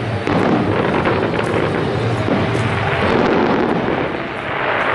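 Fireworks display: a continuous dense crackle and rumble of many shells at once, with no single bang standing out.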